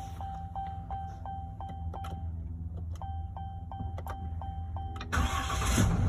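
Truck cab electronics: a steady chime tone with regular ticking about three times a second, over a low steady hum. About five seconds in, a loud rush of noise starts.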